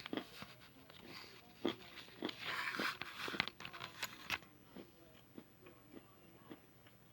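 Crunchy food being bitten and chewed: a run of sharp crunches, densest from about two to three and a half seconds in, then fainter, sparser chewing.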